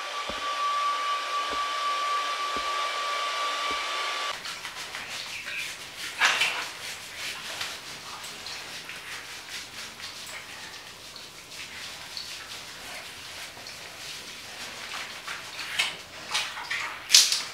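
A steady rush of water with a thin high whine, cut off about four seconds in. Then quieter wet rubbing and a few short splashes while a cat is lathered and washed on a tiled shower floor.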